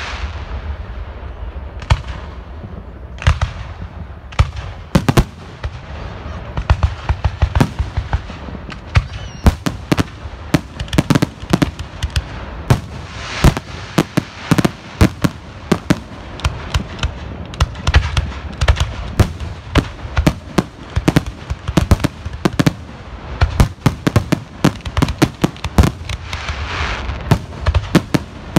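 Fireworks finale: aerial shells bursting one after another, a few seconds apart at first, then a dense barrage of bangs from about ten seconds in, with crackling between the bangs.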